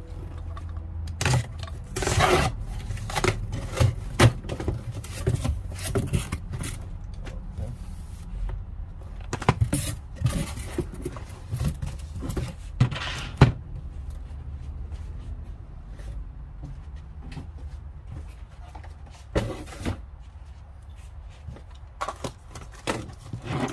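Irregular clicks, knocks and scrapes of tools and packaging being handled and unpacked, the sharpest knock about halfway through, over a low steady hum.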